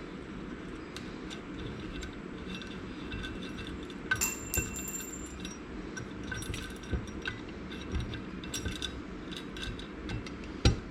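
Small steel valvetrain parts clinking and ringing against each other and the metal tools as a cylinder head's valves, springs and retainers are taken apart. There are scattered light clicks, a louder ringing clink about four seconds in, more clinks a few seconds later and a sharp knock near the end, all over a steady low hum.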